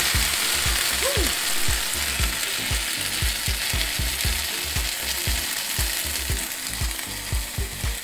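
Water poured into a hot stainless steel skillet of oil-browned rice, sizzling and hissing loudly as it flashes to steam. The hiss eases gradually as the pan cools.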